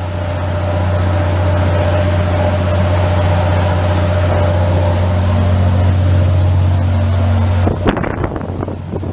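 A harbour ferry's engine running with a steady low drone. About eight seconds in, gusts of wind buffet the microphone.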